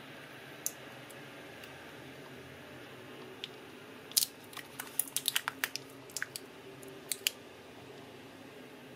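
Sharp clicks and taps from hands handling a new MacBook Pro 15-inch Retina battery pack. There is one click just under a second in, then a quick cluster of about a dozen between about four and seven seconds in, over a faint steady hiss.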